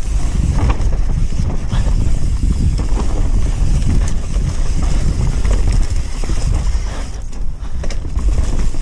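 Mountain bike ridden down a bike-park trail: tyres rolling over dirt and rocks, with the bike's frame and chain rattling in quick knocks over a heavy wind rumble on the microphone.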